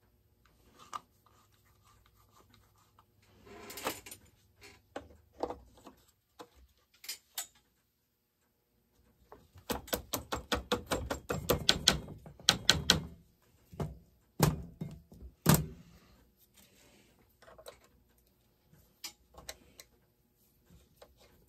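Saw chain and metal parts clinking and rattling on a Husqvarna 572 XP chainsaw as its bar and chain are fitted by hand. There is a run of rapid clicks in the middle, followed by a couple of sharper knocks.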